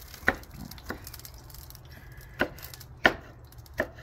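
Chef's knife dicing red bell pepper on a wooden cutting board: five sharp knocks of the blade striking the board, at uneven intervals.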